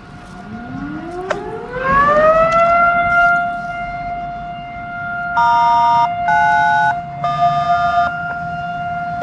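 Federal Signal 2T22 rotating dual-tone siren winding up, rising in pitch and reaching a steady high tone within about two seconds, its loudness swelling and fading as it rotates. About five seconds in, three short electronic tone beeps from a radio scanner sound over it.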